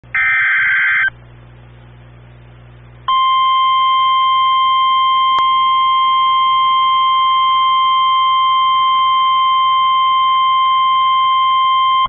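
NOAA Weather Radio emergency alert over a live stream: a harsh, warbling burst of SAME digital header data lasting about a second, then after a two-second pause the steady, piercing 1050 Hz warning alarm tone, held for about nine seconds. The alarm tone signals that a warning, here a flash flood warning, is about to be read.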